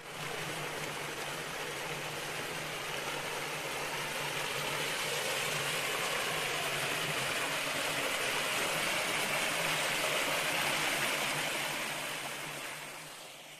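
Water rushing down a small stepped cascade in a qanat-fed stone garden channel, a steady splashing rush that fades away near the end.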